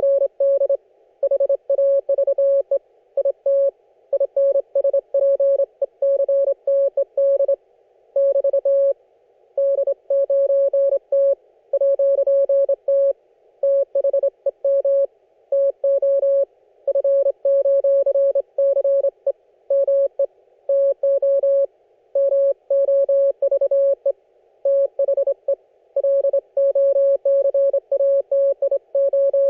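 Morse code (CW) from an Icom IC-718 HF receiver: a single steady tone of about 600 Hz keyed on and off in dots and dashes, over a narrow band of receiver hiss between the elements.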